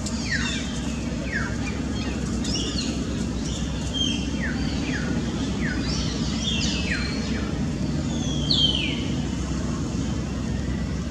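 Birds calling with many short, quickly falling chirps, one louder call near the end, over a steady low rumble.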